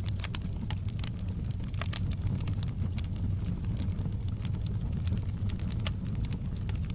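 Wood fire burning in a fireplace: a steady low rumble of the flames with irregular sharp crackles and pops from the burning wood.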